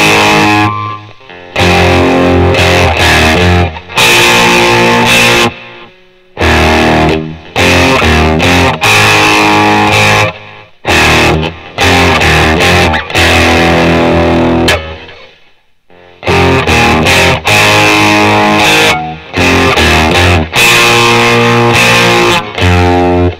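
Mexican-made Fender electric guitar played through an amplifier: chords in short phrases of a few seconds, each cut off sharply, with brief pauses between them.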